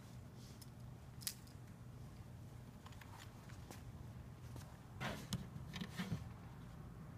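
Faint steady low hum, with one sharp click about a second in, then a short cluster of taps and rustling around five to six seconds in as a hand works a laptop's keyboard.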